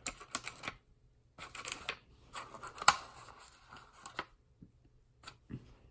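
Crinkling and clicking of plastic packaging and a thin plastic tray as hands handle small balls of candy dough, in two bouts of rustling with a sharp click about three seconds in, then only a few scattered ticks.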